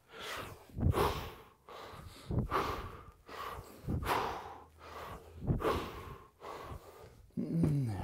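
A man's forceful exhales, one with each kettlebell swing, about every second and a half. Near the end comes a short vocal sound falling in pitch as the set finishes.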